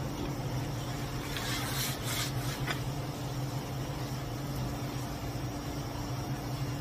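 Steady low electrical hum with a faint room-noise hiss, broken by a few soft rustles about one and a half to two and a half seconds in.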